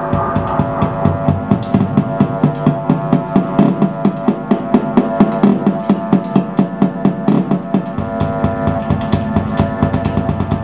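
Experimental electronic music: a dense held drone of several steady tones under an even, rapid pulse of about four to five beats a second.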